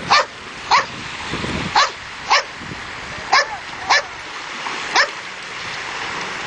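A dog barking seven times, in short, sharp, high-pitched yips a half-second to a second apart, over a steady background hiss.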